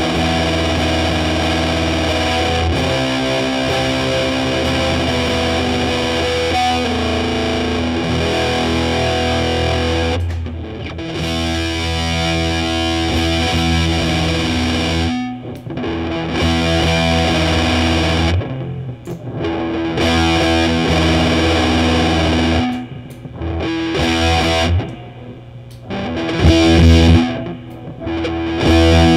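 Electric guitar played through a Big Muff–style fuzz pedal: thick, heavily distorted chords that ring out and sustain. In the second half the playing stops briefly several times before the next chord is struck.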